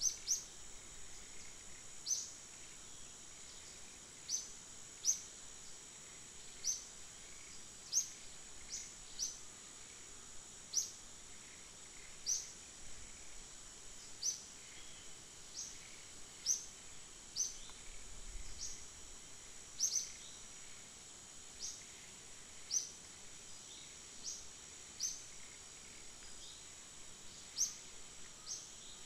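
Short, rising bird chirps repeating every one to two seconds over a steady, high-pitched insect drone.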